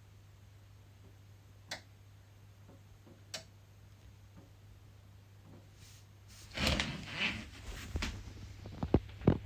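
EcoFlow Delta Pro portable power station clicking, two sharp clicks about two seconds apart over a low steady hum. The clicks are the unit's fault: it keeps connecting and disconnecting its solar input when the panels' output is low. In the last three seconds there is a louder stretch of rustling and several sharp knocks.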